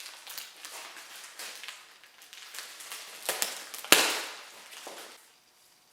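Parts being handled during engine reassembly: scattered rustles and light clicks, a sharp knock a little after three seconds in, and a louder sharp knock just before four seconds in.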